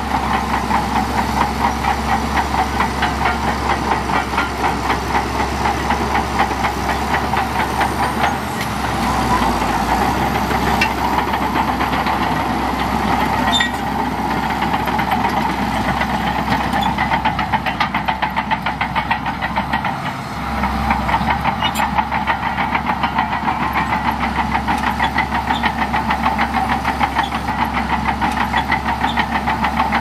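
Shantui DH17C2 bulldozer's diesel engine running under load with a steady, rapid clatter as the dozer pushes sand, easing off briefly twice.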